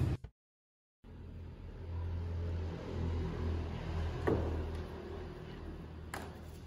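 Low, steady rumble of a motor vehicle engine, starting about a second in, with a sharp knock about four seconds in and a fainter one near the end.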